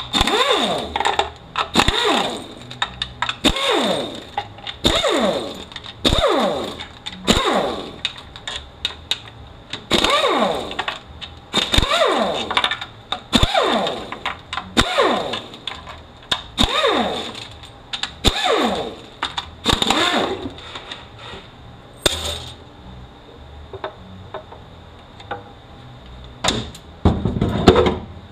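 Air ratchet spinning out 10 mm bolts on a 6T70E transmission case: repeated short bursts about once a second, each ending in a falling whine. After about twenty seconds the bursts stop and only a few clicks and knocks of tools and bolts follow.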